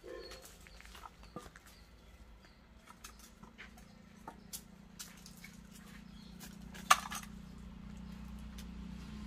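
Fallen custard apples being picked up off dry ground and put into a bowl: scattered light knocks and rustles, the loudest a single sharp knock about seven seconds in.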